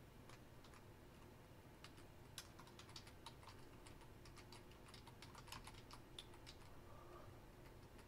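Faint typing on a computer keyboard: quick key clicks in uneven runs, busiest through the middle.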